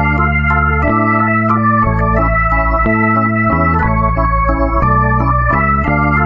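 Organ music: sustained chords over a low bass line whose notes change about once a second, steady in loudness throughout.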